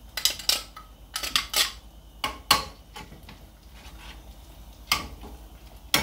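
Kitchen utensils and dishes clattering: a quick series of sharp clinks and knocks in the first couple of seconds, then one more a little before the end and a last one at the end.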